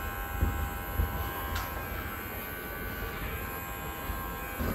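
Electric pet hair clipper running with a steady buzz while trimming a dog's paw, with a couple of faint knocks about half a second and a second in.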